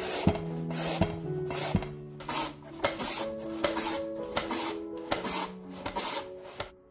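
Korean white radish pushed in long strokes across a plastic julienne mandoline's blades, a rasping scrape about twice a second as it is shredded into long strips. Piano music plays underneath.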